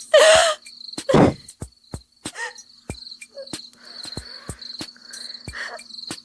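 Crickets chirping steadily, over a row of sharp clicks, with two short loud sounds in the first second or so.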